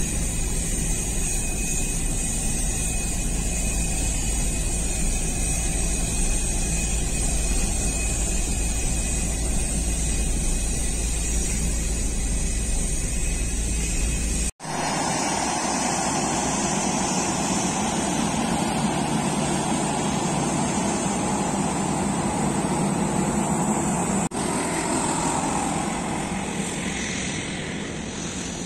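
Jet engines of a twin-engine business jet running as it rolls along the runway: a steady roar with a thin high whine over a strong low rumble. About halfway through, the sound cuts abruptly to the more distant, even roar of a jet airliner.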